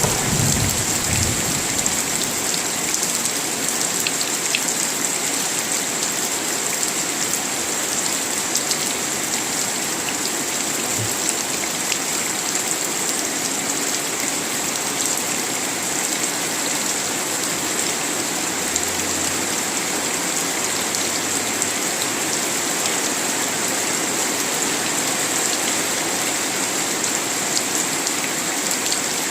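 Steady rain falling, an even, unbroken hiss of many drops hitting surfaces.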